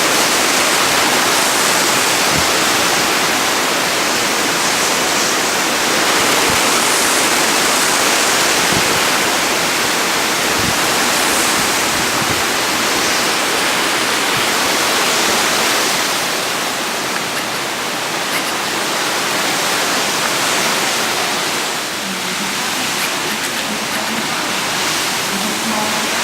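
Hurricane Irma's wind and driving rain: a loud, steady rush that eases a little about two thirds of the way through, then picks up again.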